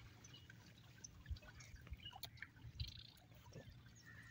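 Faint water dripping and splashing as a fishing net is worked through shallow pond water, with scattered small clicks.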